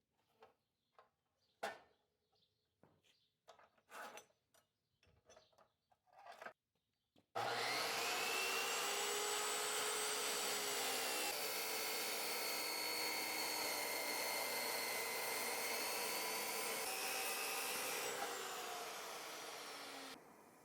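A few faint, scattered clicks and taps. About seven seconds in, an electric power tool in a knifemaking shop starts up suddenly and runs steadily, with a motor whine under a rough, rubbing hiss, until it fades shortly before the end.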